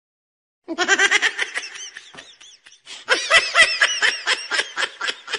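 High-pitched laughter in quick pulses, in two bouts: the first starting under a second in, the second about three seconds in.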